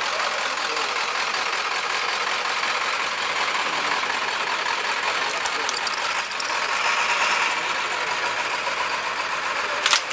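Rescue ambulance's engine running as the vehicle moves slowly past close by, over a steady hiss of street noise, with one sharp knock near the end.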